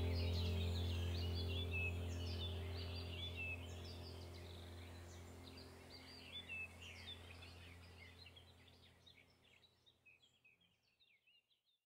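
Birds chirping, many quick high calls, over a sustained low drone of background music. Both fade out gradually to silence near the end.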